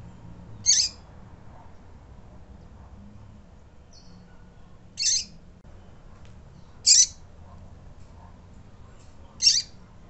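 Female double-collared seedeater (coleiro) calling: four short, high call notes spaced a few seconds apart.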